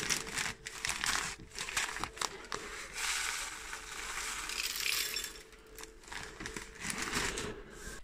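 Birdseed poured from a plastic bag through a rolled paper funnel into a plastic soda bottle: rustling and crinkling of the bag and paper, with a steady hiss of seed running into the bottle from about three to five seconds in.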